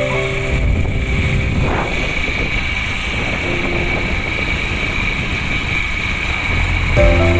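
Steady road and wind noise from a moving motorcycle, with short vehicle-horn honks from traffic near the start, once in the middle and again near the end.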